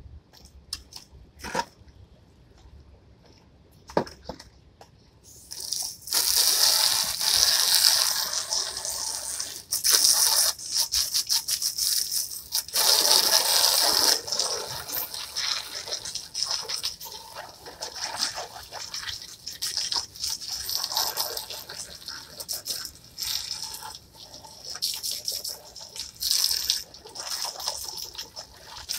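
Garden hose spray hissing as water is sprayed onto white plastic chairs to wash them. The spray starts about five seconds in, after a few quiet clicks, and rises and falls in strength.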